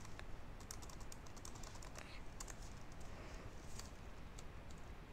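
Computer keyboard typing: faint, irregular key clicks as a line of code is deleted and retyped.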